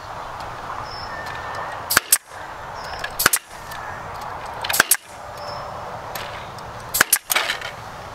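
Power staple gun firing staples through wire mesh into a wooden frame: four sharp double cracks spaced one to two seconds apart.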